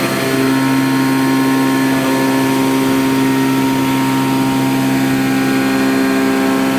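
Okuma Genos M560-V vertical machining centre running a CNC milling job: a steady machine whine of several tones from the spindle and cutting. It shifts to a new steady pitch shortly after the start.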